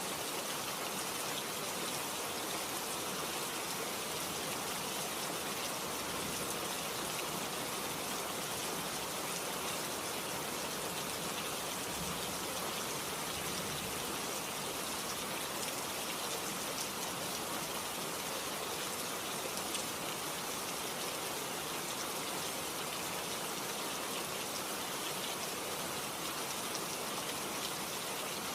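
Steady rain falling, a dense even patter of drops without let-up.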